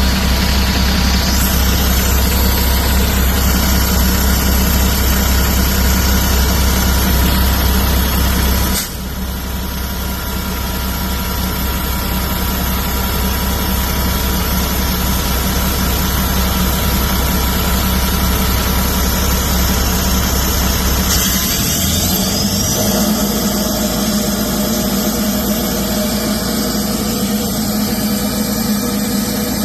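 Diesel truck engine running steadily during a DPF regeneration/snap test. The level drops suddenly about nine seconds in, and the engine note changes around twenty-one seconds, with a faint rising whine.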